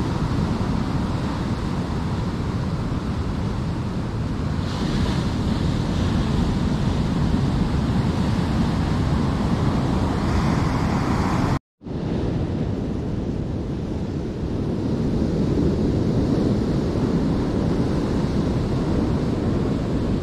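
Ocean surf breaking and washing over a rocky beach, with wind rumbling on the microphone. A little past halfway the sound drops out to silence for a split second, then the surf resumes.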